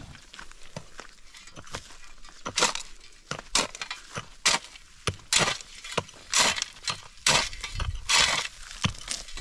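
Metal shovel and hoe blades scraping and chopping into dry, stony ground, with small stones clinking. The strokes come irregularly, every half second to a second, and grow more frequent after the first couple of seconds.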